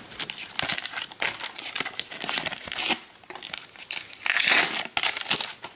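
Paper Panini sticker packet being torn open and crinkled by hand, in uneven bursts of crackly rustling.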